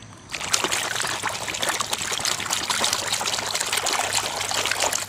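Water splashing and sloshing in a plastic tub as a hand scrubs a muddy plastic toy helicopter underwater. It starts about a third of a second in, keeps up steadily, and stops near the end.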